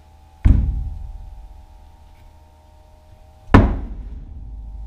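Two loud bangs on a wooden door, about three seconds apart, each dying away with an echo over about a second.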